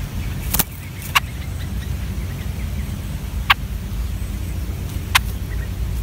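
Steady low background rumble, with four short, sharp high-pitched chirps spaced one to two seconds apart.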